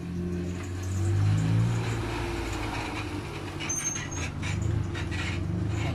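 An engine running at idle, a steady low hum throughout. Short metallic clicks and knocks from the alternator and its fittings being handled and seated come in from about halfway.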